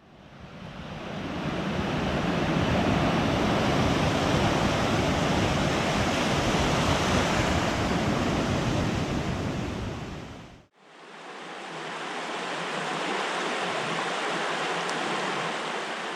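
Steady outdoor rushing of wind with a flowing stream, the deep rumble of wind buffeting the microphone under it. It fades in over about two seconds, cuts off sharply about ten and a half seconds in, and a second stretch without the deep rumble fades back in.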